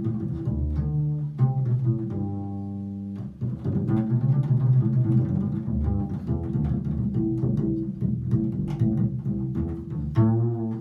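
Five-string acoustic double bass with a low B string, played solo and plucked pizzicato. It plays a few notes, holds one for about a second, then plays a quicker run of plucked notes.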